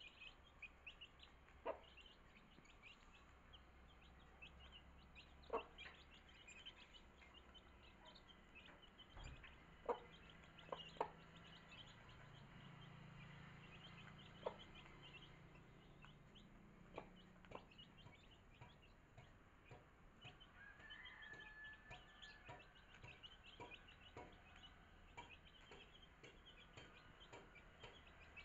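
Faint peeping of young chicks and clucking of a mother hen as they feed, with scattered sharp taps of beaks pecking grain off a cloth.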